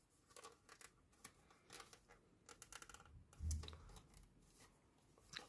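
Faint rustling, scraping and small clicks of thin card being bent and a tab worked into a slot by hand, with one dull thump about three and a half seconds in.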